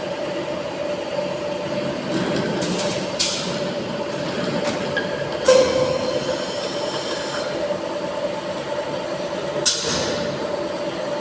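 Tilting-type air-jet bottle washing machine running with a steady mechanical hum, broken by short hissing blasts of compressed air three times, the middle one the longest.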